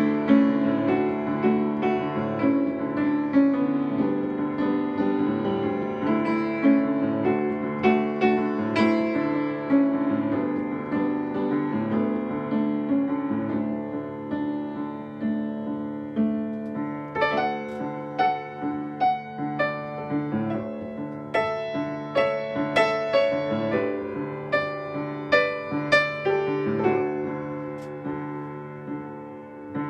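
Upright piano played solo: a gentle piece of held chords that, a bit past the middle, turns to more separate, crisply struck notes, then thins out and softens near the end before a few more notes.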